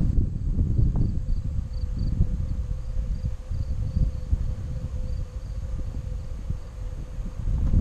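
Wind buffeting the microphone of a camera on a moving bicycle, a dense low rumble. Faint short high chirps repeat over it through the first five seconds or so, like insects calling from the roadside.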